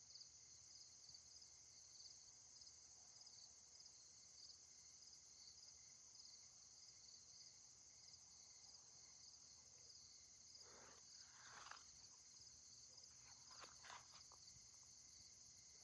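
Faint, steady chorus of crickets chirping in an even, pulsing high trill, with a few faint brief rustles or knocks about two-thirds of the way in and near the end.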